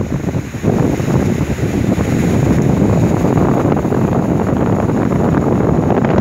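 Strong wind buffeting the microphone over heavy seas breaking along an oil tanker's side and washing across its deck, the noise growing louder just under a second in.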